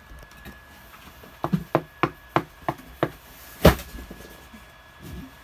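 Knocking on a wooden door: a run of about six sharp knocks, roughly three a second, then one louder bang about a second later.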